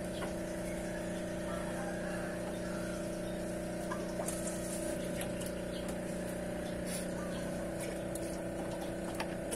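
Steady electric hum of an aquarium pump running, with a few faint clicks over it.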